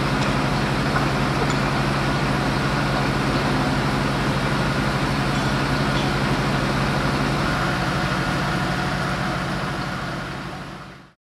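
Engine of fire-brigade equipment running steadily at an even pitch. The sound fades out near the end.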